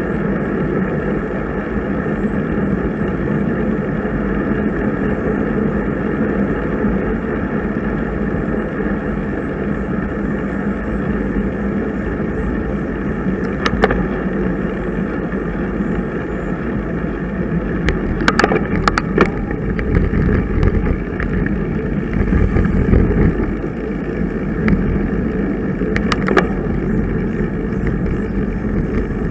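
Steady rush of wind and road noise from a bicycle ride, with a few sharp clicks in the second half.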